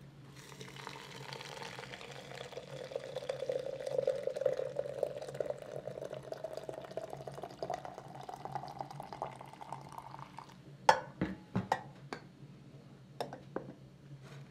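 Water poured in a steady stream from an enamel kettle into a glass teapot, the pitch of the filling rising as the pot fills. The pour ends about three-quarters of the way through, followed by a few sharp clinks.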